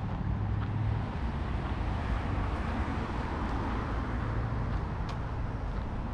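A car passing on the street, its tyre and road noise swelling to a peak about three seconds in and then fading, over a steady low traffic rumble.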